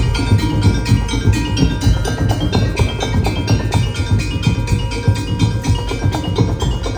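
Band playing instrumental music: a fast, even run of struck percussion notes that ring like mallet instruments, over drums.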